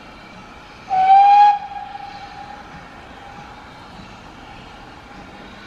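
A steam locomotive's whistle sounds one short, loud blast about a second in. Its pitch rises slightly as it opens, and it trails away over the next second or so above steady background noise.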